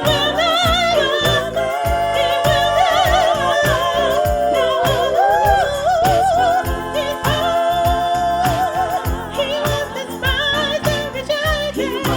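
Music: a voice singing a melody with wide vibrato over accompaniment with a steady beat.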